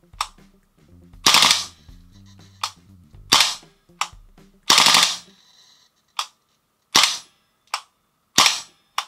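VFC FN FNC gas blowback airsoft rifle firing single shots, five loud sharp reports spaced about a second and a half apart, each with a fainter click between. The rifle is set to three-round burst but gives only one shot per trigger pull: a fault in the burst mechanism.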